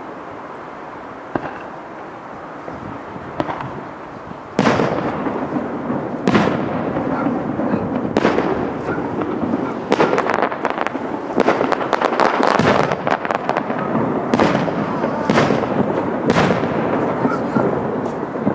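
Fireworks display: two single bangs in the first few seconds, then from about four and a half seconds in a dense barrage of loud bursts with crackling between them.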